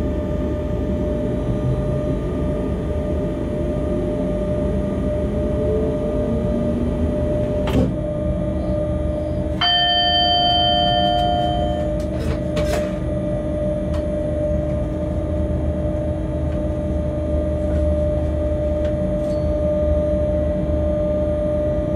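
Locomotive running along the line, heard from inside its cab: a steady rumble with a motor whine that climbs in pitch over a few seconds. About eight seconds in there is a sharp click, then a two-second electronic warning beep from the cab, followed by a few more clicks.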